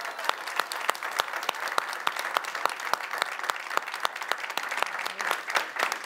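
Audience applauding: many people clapping in a dense, steady patter.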